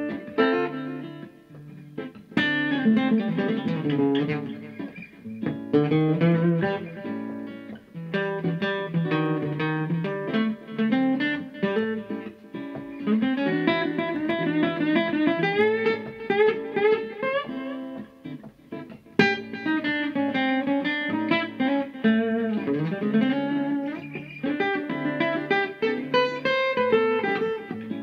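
Steel-string acoustic guitar played solo: jazzy blues licks of single notes with bends and slides, and hard-struck chords now and then, about two, six and nineteen seconds in.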